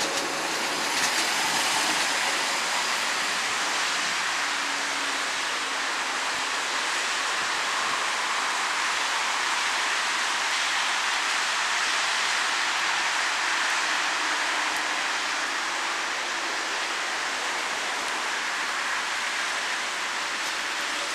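Steady rushing noise, even and without clear beats or tones, from a train rolling along in the rain.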